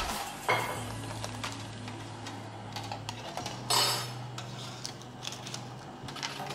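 Light clinks and clatter of metal utensils and a metal baking tray on a hard tabletop, with baking paper rustling as it is handled. Two sharper clatters stand out, about half a second in and nearly four seconds in, the second the louder.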